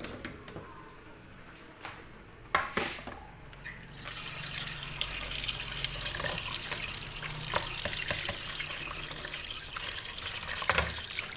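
Kitchen tap running into a plastic basin in a sink while a metal spoon is rinsed under the stream. A couple of sharp knocks come about two and a half seconds in; the water starts at about four seconds, runs steadily and stops just before the end.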